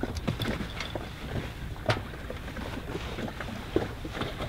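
Wind rumbling on the microphone on a sailboat's deck, with scattered light clicks and knocks.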